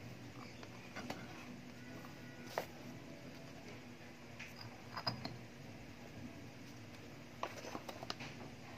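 Quiet low hum with a few scattered light clicks and taps, and a short cluster of clicks near the end as the plastic motorcycle fender is picked up and handled.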